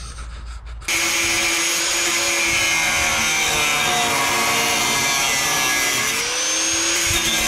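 Angle grinder cutting through metal: it starts abruptly about a second in, then a loud steady whine over a grinding hiss. The pitch sags briefly near the end as the wheel is loaded, then comes back up.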